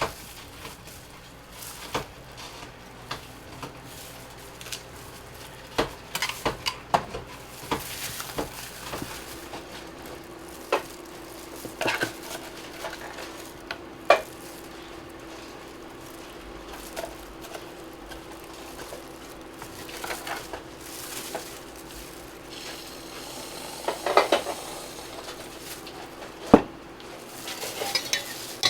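Metal utensils and cookware clinking, tapping and scraping at a crepe stand in scattered knocks, over a light steady background with a low hum that starts about a third of the way in.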